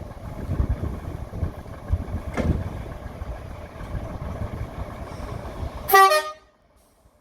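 A diesel locomotive horn gives one short, loud blast near the end over a steady low rumble, and the sound then cuts off abruptly. There is a single knock a couple of seconds in.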